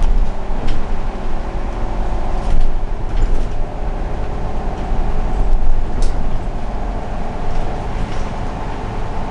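Irisbus Citelis city bus heard from inside the passenger cabin while under way: steady engine and road rumble with a running hum, and a few short rattles and knocks from the body.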